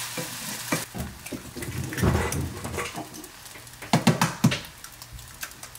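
Spatula scraping and pushing cooked rice across a white skillet over a light frying sizzle, with scattered knocks. About four seconds in come a few sharp taps as an egg is cracked on the pan.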